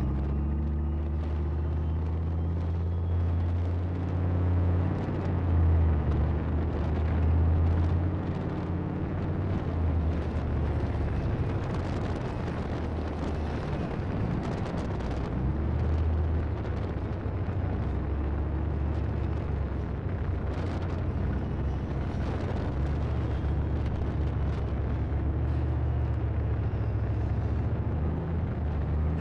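Leopard 1 tank on the move over rough ground: its 10-cylinder multi-fuel diesel engine runs with a steady low drone, mixed with the clatter of tracks and running gear, as picked up by a camera on the turret roof.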